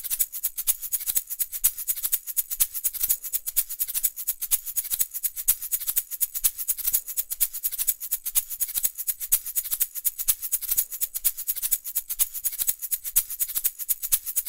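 Music intro of a fast, steady, high-pitched percussion rhythm, several strokes a second, with little else under it.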